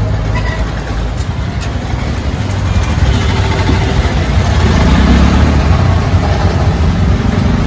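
Street traffic with auto-rickshaw engines passing: a steady low rumble that grows louder about halfway through.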